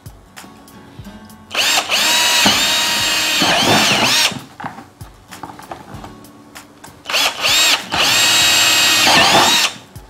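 Electric drill boring air holes through the side of a plastic bucket: two bursts of a few seconds each, the motor's whine dipping as the bit bites into the plastic and picking up again as it breaks through. Between the bursts there are light knocks as the bucket is handled.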